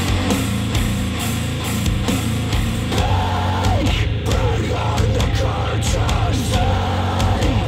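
Rock music playing through a pair of JBL HDi 1600 bookshelf speakers driven by an IOTAVX SA3 integrated amplifier, loud and continuous with heavy bass and a steady beat.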